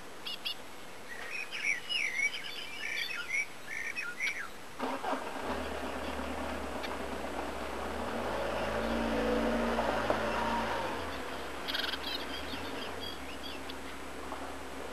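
Eurasian blue tits chirping in quick bursts at the nest hole for the first few seconds, then briefly again near the end. Partway through, a motor vehicle's engine hum swells up, is loudest in the middle, and fades.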